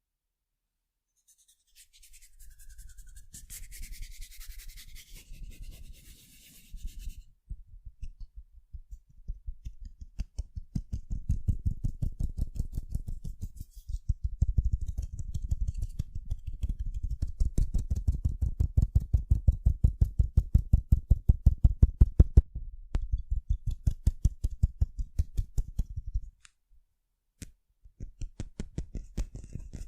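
Rapid fingertip tapping on sunglasses, several taps a second, close to the microphone, with a scratchy rustle over the first few seconds and a brief pause near the end.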